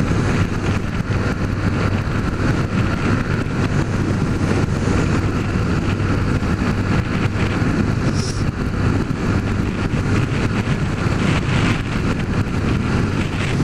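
Honda CG 150 Fan single-cylinder four-stroke motorcycle engine running steadily while riding at a constant speed, with a steady low hum under an even rush of noise.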